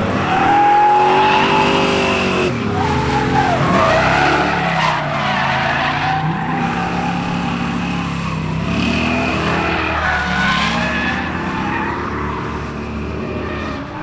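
Two V8 drift cars, a Ford Mustang with a 351 Windsor small-block and a Corvette, revving up and down through a tandem drift while their tyres squeal and skid.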